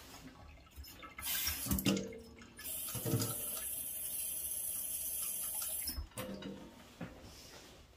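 Water running from a tap as a boiler part is rinsed to wash out rust: a short spurt about a second in, then a steady flow for about three seconds that shuts off abruptly, with a few knocks as the part is handled.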